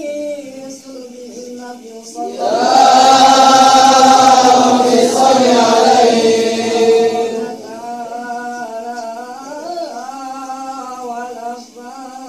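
A man's voice chanting Arabic in the melodic, ornamented style used to read the rawi, the narrative prose of a Maulid text, with long held notes. The voice is much louder and fuller from about two seconds in until about seven and a half seconds, then drops back to a softer, wavering line.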